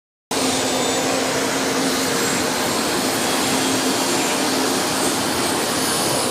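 Steady jet-engine noise from a private jet running on the ramp: an even rushing whine with a low steady hum beneath it, cutting in suddenly just after the start.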